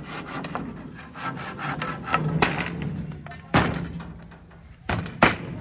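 A wooden plank being handled on a pickup's metal cargo rack: small clicks and scraping of wood, then three sharp knocks, one just past halfway and two close together near the end.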